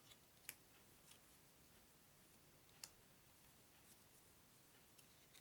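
Near silence with a few faint clicks of playing cards being handled and set down, the clearest about half a second in and again near three seconds.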